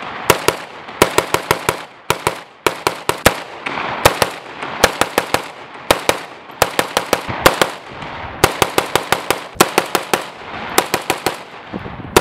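AK-pattern rifle fitted with a muzzle brake/compensator firing quick strings of three to six shots, each string fast, with short pauses between strings. Every shot is sharp and echoes off the range.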